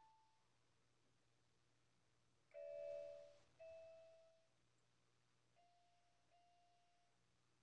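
Toy keyboard played by a baby: a few slow, separate electronic notes, each fading away after the key is struck. The loudest, two tones at once, comes about two and a half seconds in, followed by another note, then two fainter notes near the end.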